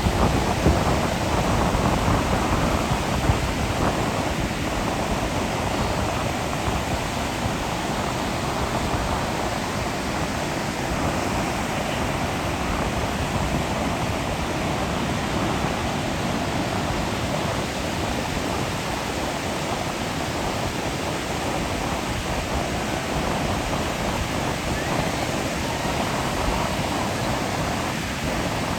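Ocean surf breaking on a beach: a steady wash of noise with no single wave standing out.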